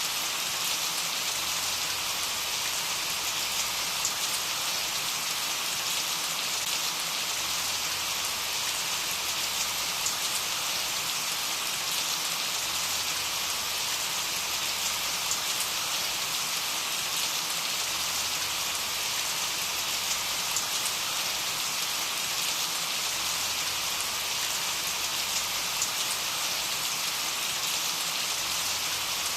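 Steady rain: an even hiss of falling rain with faint scattered drop ticks, unchanging throughout.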